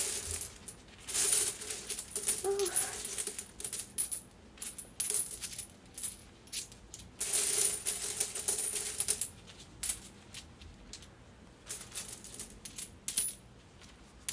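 A pile of New Taiwan dollar coins clinking and clattering as they are sorted and stacked by hand, in irregular bursts of clinks with two longer runs of rattling, about a second in and again around seven to nine seconds.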